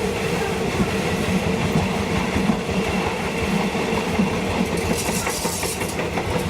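Diesel train running along the track: a steady engine hum under wheel and rail noise with some clickety-clack, and extra rattling about five seconds in.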